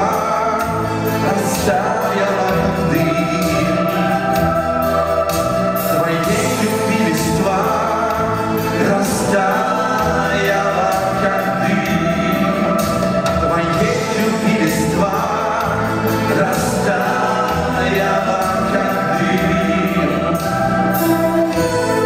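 A Soviet-style vocal-instrumental band playing live: electric guitars, bass and keyboard with voices singing over them.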